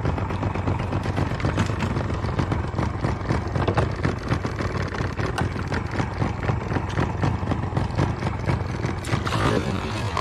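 A small engine idling steadily, with a fine rapid clatter over its low hum.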